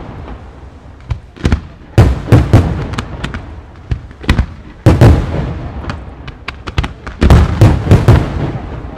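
Aerial firework shells bursting in a rapid barrage: loud, sharp bangs in clusters, with crackling between them as the bursts die away.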